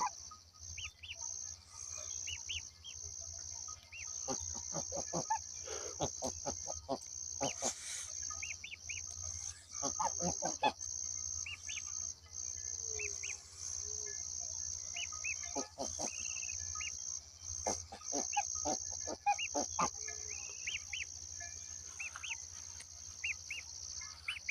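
Geese calling in several bouts of quick, repeated honks while guarding their young. Small high peeps from the young birds come in between, over a steady high-pitched trill.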